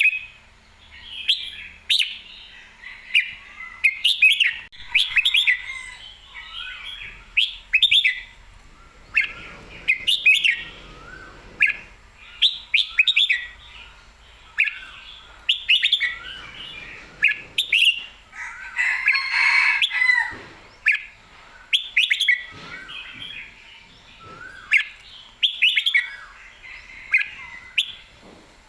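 Red-whiskered bulbul singing: short, bright, warbled phrases repeated every second or two, with a louder, fuller burst of song about two-thirds of the way through.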